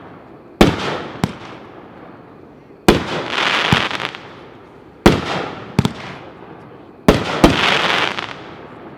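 Aerial shells from a 9-shot brocade cake with colour and strobe pistils, bursting four times about two seconds apart. Each burst is a sharp bang, then a smaller second bang, then a crackling hiss that fades over a second or two.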